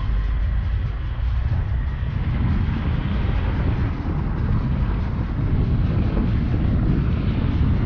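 A vehicle driving along an unpaved dirt road: a steady low rumble of engine and tyres on the rough surface.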